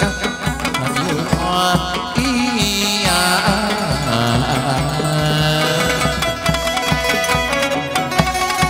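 Chầu văn ritual music accompanying a hầu đồng spirit-medium dance: plucked lute and a steady drum beat.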